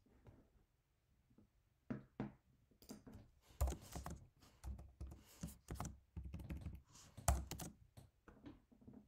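Typing on a computer keyboard: irregular key clicks with a few heavier strokes, starting about two seconds in.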